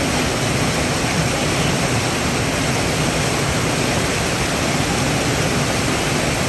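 Steady rush of a small waterfall: a stream cascading as white water down a rocky chute, splashing over the rocks.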